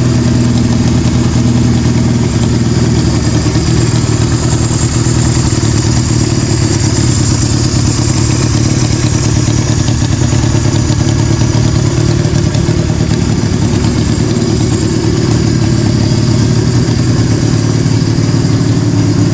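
A 1965 Honda CB160 cafe racer's small parallel-twin engine running steadily through straight pipes, loud and unmuffled.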